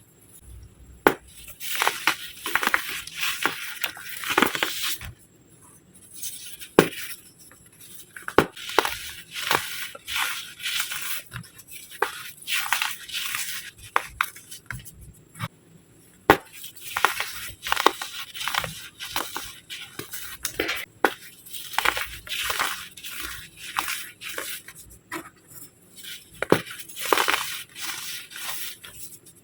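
Hardened baking soda shapes being crushed and crumbled by hand: an irregular run of sharp crunches and cracks with a crumbly rustle between them, easing off twice.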